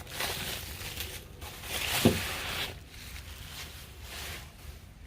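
Rustling and crinkling of packaging, in a few irregular bouts, as parts are handled out of a box.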